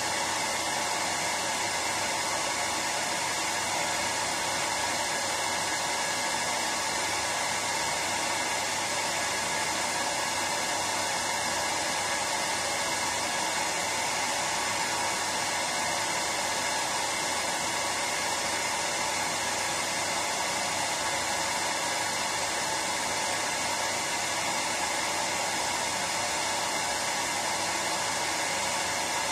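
Hair dryer running steadily: a constant even whoosh of blown air and fan motor, with no change in speed.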